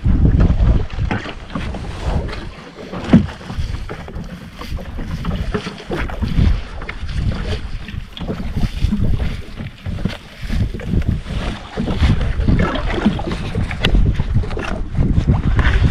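Wind buffeting the microphone on a boat at sea, an uneven gusting rumble with water noise beneath it. There are scattered light knocks, with one sharp knock about three seconds in.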